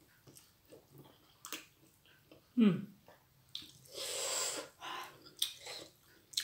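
A person eating spicy chili food: small chewing and lip clicks, a short vocal sound falling in pitch a few seconds in, then a hissing breath through the mouth for about a second, a reaction to the heat of the chili.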